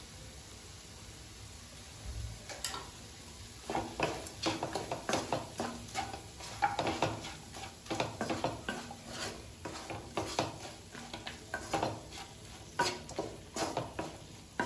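Wooden spatula stirring chicken fry in a nonstick kadai: quick, irregular scrapes and knocks against the pan, starting about two seconds in.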